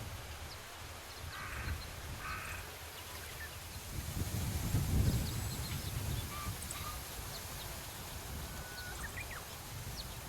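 A bird gives two short, harsh calls about a second apart, like crow caws, with faint high chirps of small birds and wind rumbling on the microphone in the middle.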